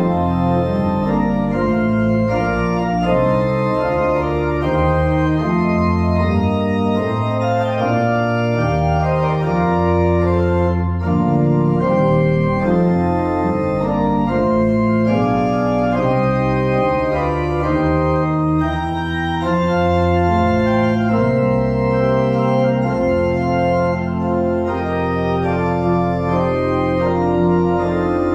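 Organ playing a postlude in sustained chords that change every second or two over long held bass notes.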